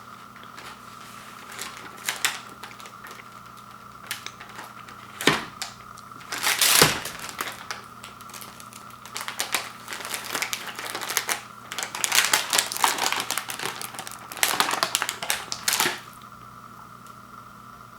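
Plastic cookie packaging crinkling and crackling as it is handled, in irregular bursts with short pauses, busiest over the last several seconds before stopping.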